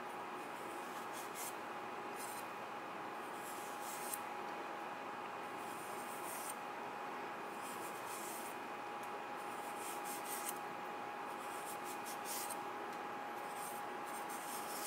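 Usuba knife blade shaving a thin continuous sheet from a peeled daikon radish (katsuramuki), giving faint, crisp scraping strokes every second or two over a steady background hum with a faint high tone.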